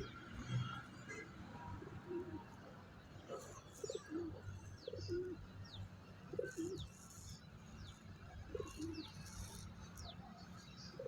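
Pigeons cooing in short, low notes, often in pairs, repeated about once a second through the middle stretch. Over them come high, thin chirps from smaller birds, each sliding downward.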